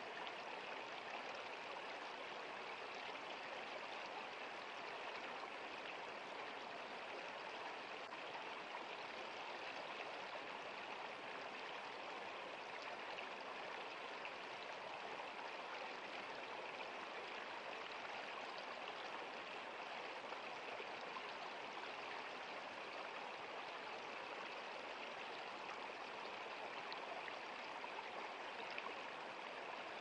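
Running water: a steady, even rush with no single splashes standing out.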